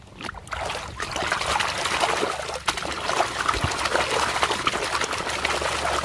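Water sloshing and splashing in a basin as a hand scrubs a toy bus back and forth under the muddy water. It starts about half a second in and keeps up steadily.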